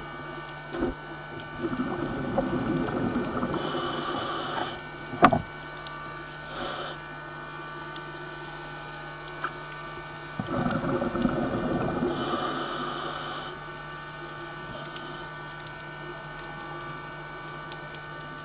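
A scuba diver breathing through a regulator underwater: two long exhalations of bubbling, each about three seconds and ending with a hiss, roughly eight seconds apart, with a sharp click about five seconds in and a steady low hum throughout.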